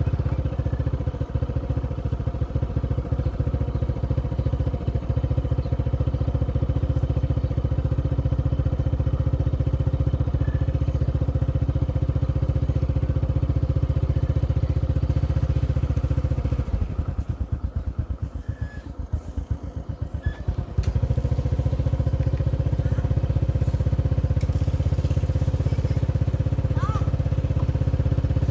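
A small engine running steadily with a constant hum. About seventeen seconds in it drops to a slower, quieter pulsing chug for a few seconds, then picks up again.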